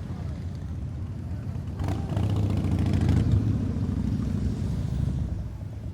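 Motorcycle engine running with a low rumble, revved up about two seconds in, then easing back toward idle.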